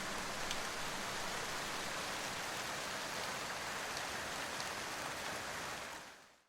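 Steady rain hiss with a few faint separate drop ticks, fading out to silence near the end.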